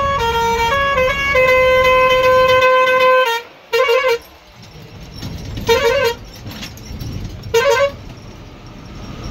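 A bus's musical multi-tone horn sounds a stepping tune of held notes for about three seconds, then gives three short warbling honks about two seconds apart, over the low rumble of the bus on the road.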